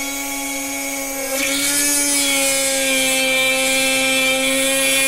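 Dremel rotary tool with a drill bit running at high speed with a steady whine. About a second and a half in, the bit starts cutting into the headlight reflector and a louder hissing grind joins the whine as the hole is drilled.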